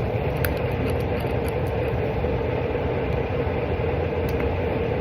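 A steady, even mechanical drone with a low rumble and a held hum, with a few faint clicks about half a second to two seconds in and once more near the end.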